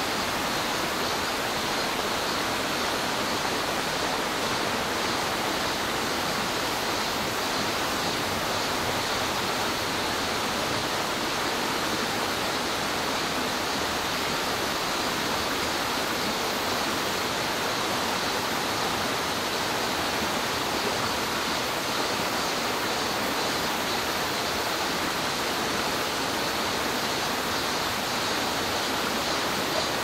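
Mountain stream running over rocks: a steady, unbroken rush of water.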